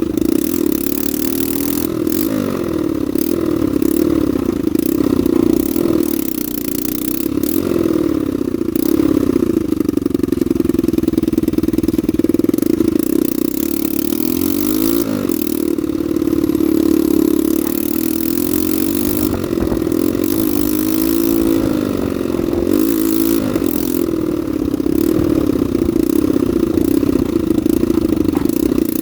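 Honda NSF100's single-cylinder four-stroke engine running steadily, its revs rising and falling.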